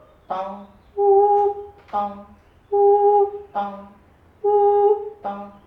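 Wordless singing: a voice alternates a short low note with a longer, steady note an octave higher, three times over in a slow repeating pattern.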